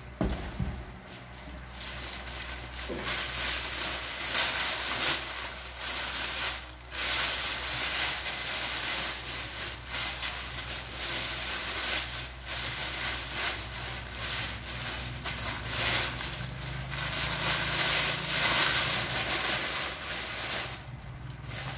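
Clear plastic bag wrapping crinkling and rustling as it is handled and pulled off a loudspeaker cabinet, unevenly, with many short swells.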